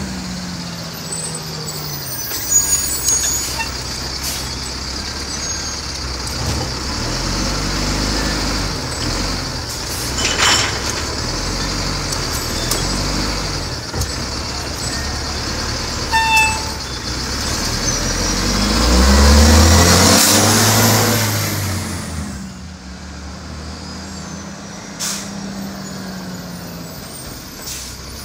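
Diesel garbage truck engine running and working, its pitch shifting. About 19 seconds in it revs up to its loudest, then drops back to a steady idle. There are short hisses of air about 10 and 16 seconds in.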